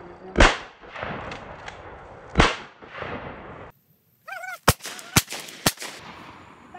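Two shotgun shots about two seconds apart, each a loud crack with a ringing echo. After a break, three sharp, shorter cracks follow about half a second apart.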